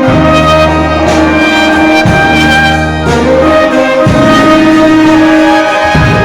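A band playing an instrumental passage of a song, with held brass notes over a bass line and drum hits about every two seconds.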